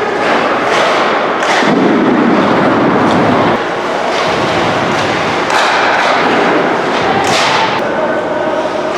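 Ice hockey game sounds in a rink: repeated thuds and knocks of puck and sticks over a steady, noisy arena din, with a few sharp swishes.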